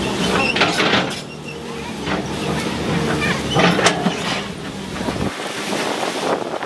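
Hydraulic excavator running while its bucket digs into earth and rips out plant roots and stumps, with irregular cracks and crunches of breaking roots and soil. The engine's low hum drops away about five seconds in.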